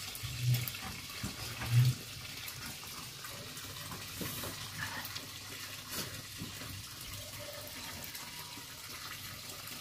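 Steady rushing hiss of running water, with a couple of short low hums in the first two seconds and a few faint clicks later on.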